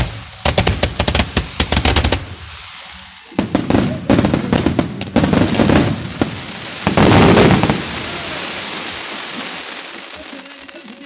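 Aerial fireworks going off in rapid volleys of crackling reports. The loudest, densest burst comes about seven seconds in, followed by a fading crackle and hiss.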